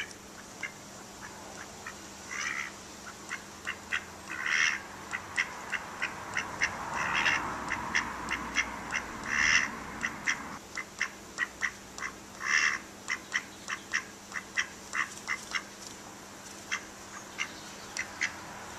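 Mallard drake quacking: a quick run of short, soft calls, several a second, with a few longer, louder quacks between them.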